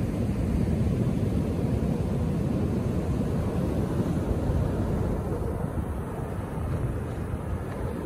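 Atlantic Ocean surf breaking on the beach: a steady low rumble of crashing waves that eases a little in the second half.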